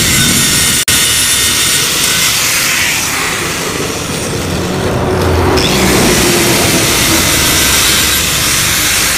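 Angle grinder grinding into the steel of a motorcycle exhaust muffler, a dense, steady metal-grinding hiss that briefly cuts out just under a second in.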